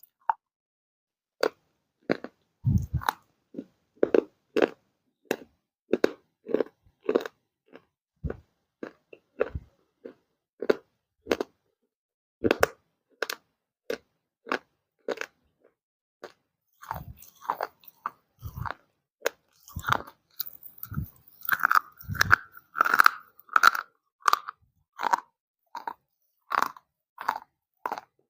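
Crunchy baked clay being bitten and chewed in a run of separate crunches about twice a second. They come thicker and louder in the second half.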